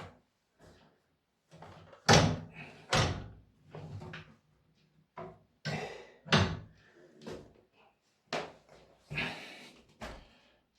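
Irregular knocks and clunks, with a few short scrapes, from stairlift parts being handled and fitted during reassembly; the loudest knocks come about two and three seconds in.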